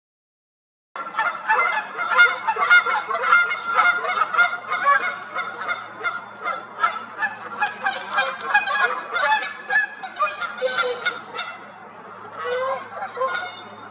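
Canada geese honking, several birds calling over one another in a rapid, unbroken run of honks that starts abruptly about a second in.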